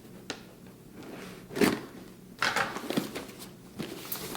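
Cardboard box and packaging being opened by hand: crackling, crinkling and rustling in several short bursts, with a few sharp clicks.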